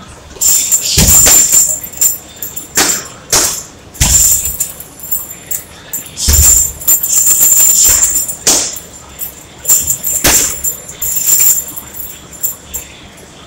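Punches landing on a heavy punching bag hung from a metal chain: a string of dull thuds in short combinations, each set off with the chain jangling and rattling. The hardest blows land about a second in, at about four seconds and just past six seconds.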